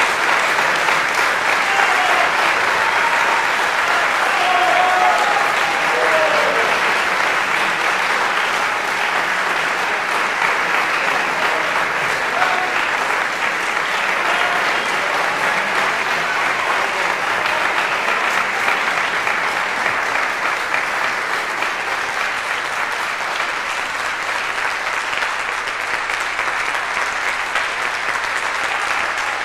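Audience applauding steadily, with a few voices calling out in the first several seconds; the clapping eases slightly toward the end.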